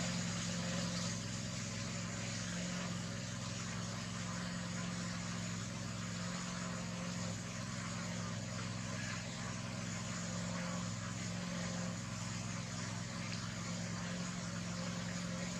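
A steady low motor-like hum under an even hiss, unchanging throughout.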